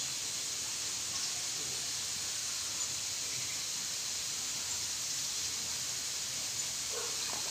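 Steady high-pitched hiss of outdoor background noise, with no distinct events.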